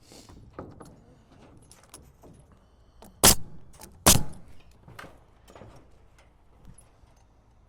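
Pneumatic nail gun firing twice, a little under a second apart, with light rattling and handling knocks around it.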